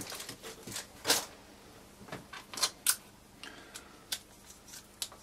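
Light, scattered clicks and taps of small hard plastic parts being handled and pressed together, as a tiny rear landing skid is fitted to a mini tricopter's tail servo mount. There are a few sharper clicks, one about a second in and two close together near the three-second mark.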